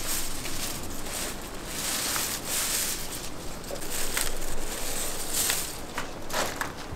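Foliage and pine needles rustling as a branch is worked by hand into a dense flower arrangement. There are a few sharp clicks of twigs and stems.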